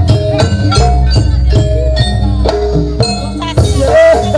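A live gamelan ensemble plays Jaranan Buto dance music: bronze kettle gongs and metallophones strike a quick stepping melody over a steady low drum-and-gong hum. Near the end the low part drops away for a moment while a metallic, hissing crash rings out.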